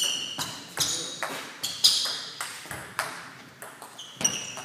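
Table tennis rally: the ball is struck back and forth by the bats and bounces on the table, making a quick run of sharp clicks about two a second. Some of the hits ring briefly with a high ping.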